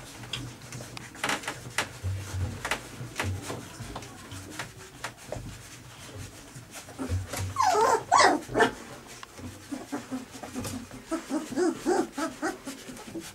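Three-week-old golden retriever puppies squealing and whimpering as they jostle one another to nurse from their mother, with scattered short clicks. The loudest burst of squeals comes about eight seconds in, followed near the end by a run of short whines.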